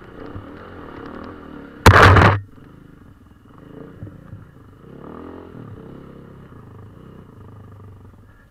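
KTM 450 EXC single-cylinder four-stroke dirt bike engine running off-road, its revs rising and falling. About two seconds in, a loud half-second burst of noise drowns it out.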